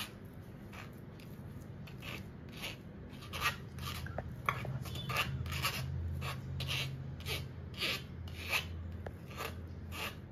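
Hand pressing and rubbing thick hung curd (chakka) through a fine stainless-steel mesh sieve, about two rasping scrapes a second, sieving it smooth for shrikhand. A low steady hum sits under the strokes from about three seconds in.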